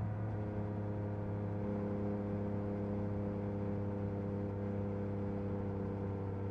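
Yamaha MT-09 SP's inline three-cylinder engine through an Akrapovic carbon racing exhaust, running steadily at a cruising pace. Its pitch dips slightly right at the start and then holds even.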